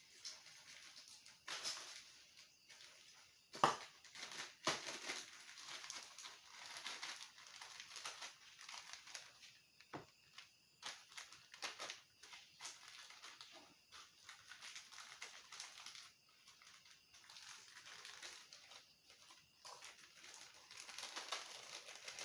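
Dry crinkling and rustling with scattered sharp clicks, irregular and faint, with the sharpest click a few seconds in.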